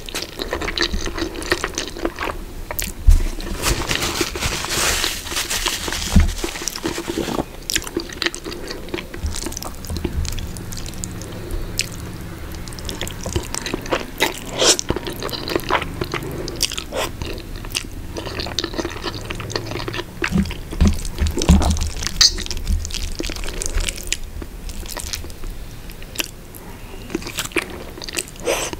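Close-miked ASMR eating sounds: spaghetti carbonara slurped in off a fork and chewed with the mouth open, a steady run of wet smacks and clicks with longer sucking hisses now and then.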